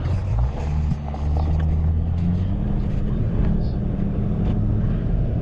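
A motor vehicle's engine running at steady low revs, a low hum that shifts slightly in pitch a couple of times.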